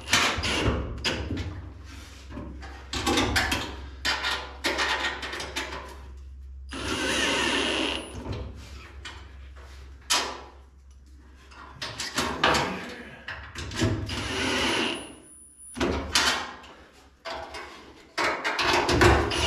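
Power drill running in two short bursts of a second or so each, with knocks and clatter of tools and parts being handled around them.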